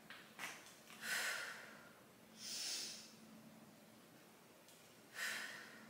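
A woman breathing hard through barbell back squats: three short, forceful breaths, about a second in, near the middle and near the end. This is the bracing pattern of a lifter who takes a big breath into the belly, holds it on the way down and exhales at the top.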